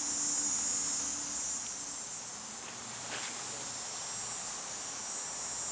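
Chorus of insects shrilling steadily, a continuous high-pitched sound.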